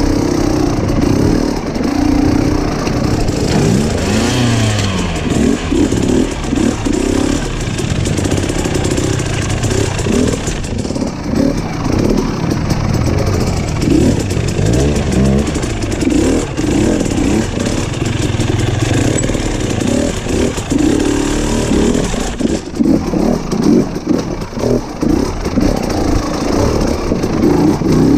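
Off-road motorcycle engine revving up and down over and over as it is ridden over rough trail, the pitch climbing and dropping every few seconds.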